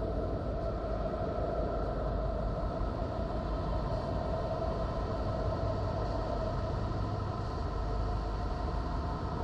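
Voyager 'sounds of Neptune': the spacecraft's radio and plasma-wave recordings near Neptune turned into audio, heard as a steady, deep, noisy drone with a held hum above it that does not change.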